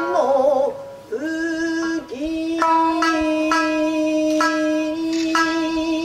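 Nagauta music: a woman's voice sings a wavering phrase, then holds a long steady note from about a second in, while a shamisen plucks spaced single notes that ring out.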